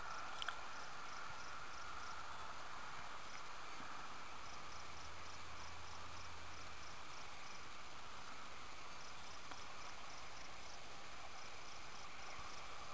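Faint, steady chirping of insects.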